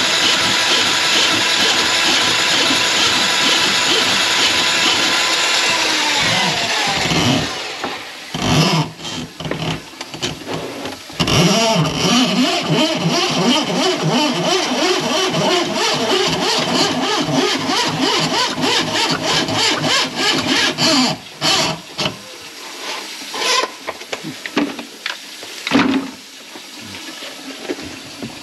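An electric motor runs steadily, then winds down about seven seconds in. It runs again, rougher, from about eleven seconds in until near twenty-one seconds, followed by a few scattered knocks.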